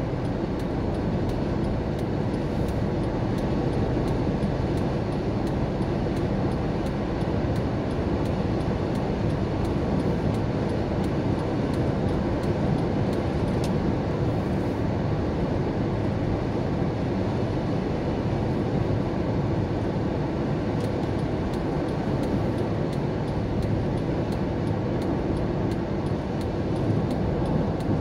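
Steady road and engine noise inside a car cruising at highway speed: an even, low tyre-and-engine rumble that does not change.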